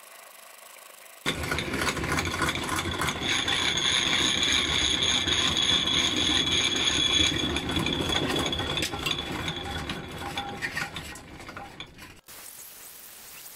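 Drill press boring into a forged steel handle: the bit bites in suddenly about a second in, cutting with a steady high squeal and metallic chatter, tapering off after about eight seconds and stopping abruptly near the end.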